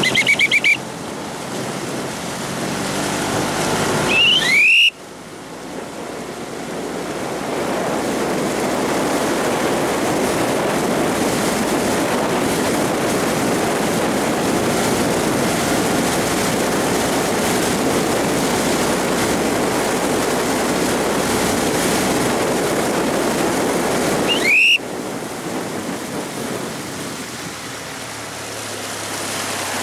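Steady rush of water and wind noise from kayaks paddled at sprint pace, with paddle blades splashing, heard from a boat moving alongside. Short rising squeaks about four seconds in and again near 25 s.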